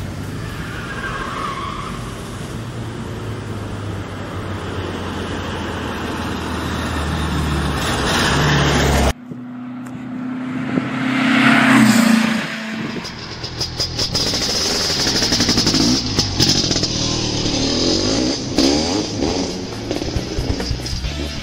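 Car engine and road noise, growing louder for about nine seconds and then cut off abruptly. A moment later another vehicle sound swells to a peak and falls away, like a car passing.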